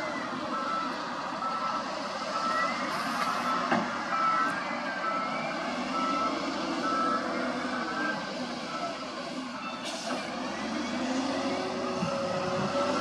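A reversing alarm beeping at a steady, even pace, fading out about two-thirds of the way in. Underneath, the diesel engine of an SDLG L958H wheel loader runs, its revs rising and falling as it works.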